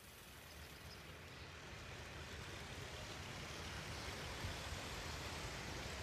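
A steady rushing noise that grows gradually louder.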